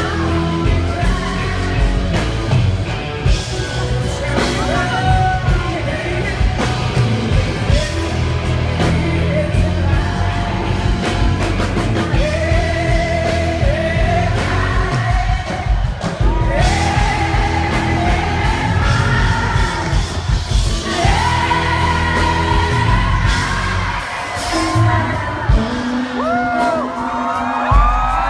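Live rock band with a woman singing lead over drums, bass and electric guitars. Near the end the bass drops away for a few seconds, leaving mostly the voice and higher instruments.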